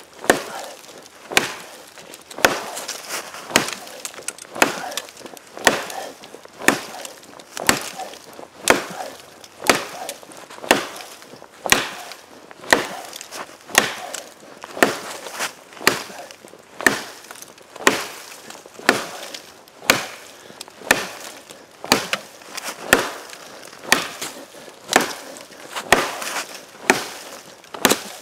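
A small parang chopping a frozen ash branch about 6 cm thick, with steady blade-on-wood chops about once a second.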